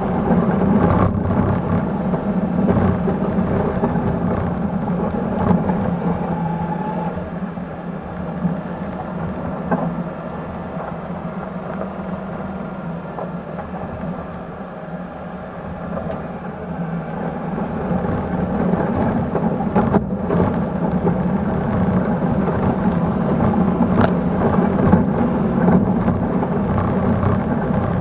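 A 1996 Suzuki Carry mini truck's small three-cylinder engine running steadily under load as the truck pushes snow with a front plow, with the noise of snow and tyres mixed in. It eases off and goes quieter for several seconds in the middle, then builds again.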